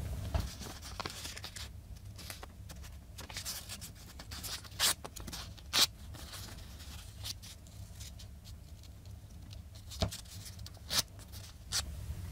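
Paper being handled: light rustles and scrapes of a small cut-out paper template, with a few sharp taps and clicks, the loudest about five and six seconds in and again near the end, over a low steady hum.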